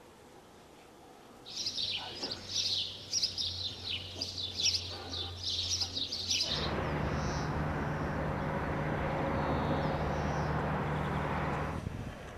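Small birds chirping busily for about five seconds over a faint low hum. Then a steady rushing noise with a low hum takes over and lasts about five seconds before dropping away.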